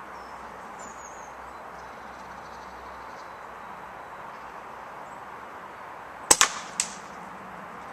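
A single shot from a Daystate Huntsman Classic air rifle, a 12 ft-lb pre-charged pneumatic with a carbon-fibre silencer: a sharp crack about six seconds in, followed about half a second later by a second, weaker crack.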